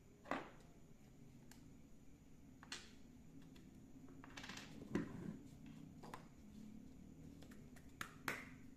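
Small sharp clicks and taps of a spinning reel's drag washers being picked out of the spool with tweezers and set down on a tabletop, a handful scattered over several seconds with a small cluster near the middle.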